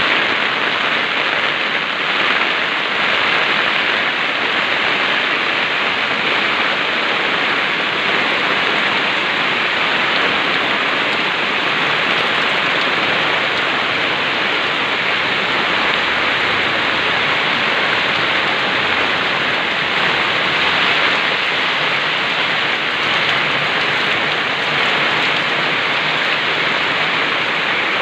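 Heavy rain pouring down steadily, a dense even hiss of rain on surfaces.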